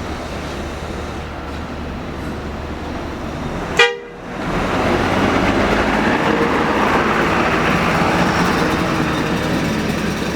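A large vehicle's engine runs steadily, then a bus horn gives one short, loud blast about four seconds in. After a brief drop, a louder, steady rush of noise takes over.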